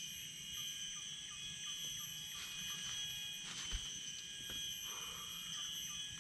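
Steady high-pitched drone of forest insects, made of several constant tones at once. About three and a half seconds in there is a single short knock, much softer than a gunshot.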